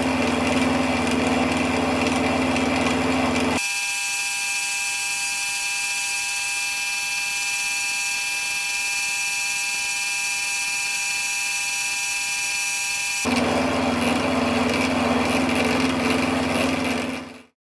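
Benchtop drill press motor running steadily, spinning a felt polishing cone used to buff a clear plastic part. A few seconds in, the low hum cuts out abruptly and a higher-pitched steady whine takes over for about ten seconds, then the lower hum returns just as abruptly before the motor stops near the end.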